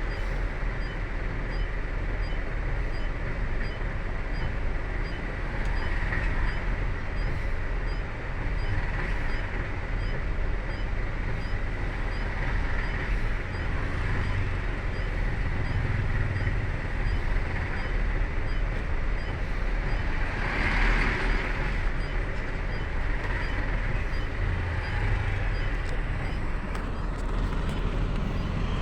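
Road traffic held in a slow queue: vehicle engines rumbling steadily, with a faint high beep repeating about twice a second and a short surge of louder noise about twenty seconds in.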